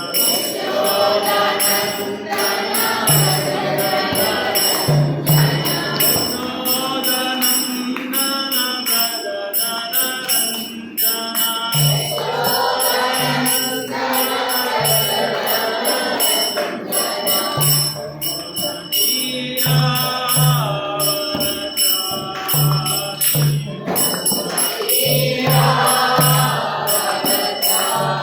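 Devotional chanting sung to a steady rhythm of ringing hand cymbals, with a drum beating a repeated low pulse.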